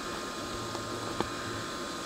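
Steady background hiss and hum, with a faint tick about a second in.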